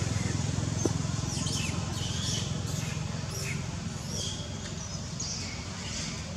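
Short, high-pitched animal chirps and squeaks, each sliding down in pitch, about one or two a second, over a low steady rumble.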